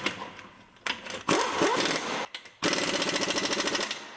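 Air impact wrench running lug nuts onto a truck's wheel studs: a short run about a second in, then a steady rapid hammering for about a second and a half past the middle, stopping near the end.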